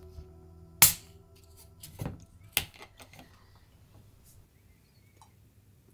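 Plastic screw cap being twisted off a bottle of carbonated cola: a sharp pop about a second in as the seal breaks, then a couple of smaller clicks from the cap.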